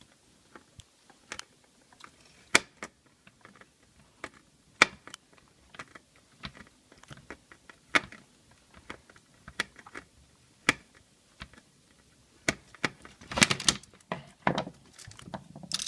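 Small power transformer from an AM/FM radio being taken apart by hand for its copper: scattered sharp metallic clicks and clacks, with a quick flurry of them near the end.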